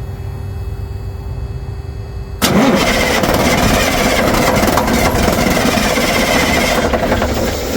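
Big Cam Cummins inline-six diesel in a Peterbilt firing up on its freshly rebuilt PT fuel pump: a low rumble, then about two and a half seconds in the engine catches suddenly and runs loud.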